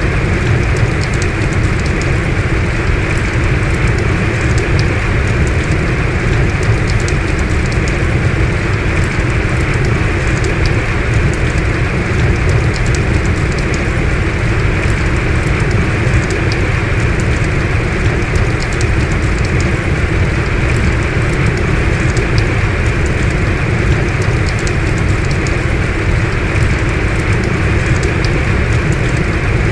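Heavy rain falling steadily: a dense, even hiss with scattered ticks of individual drops.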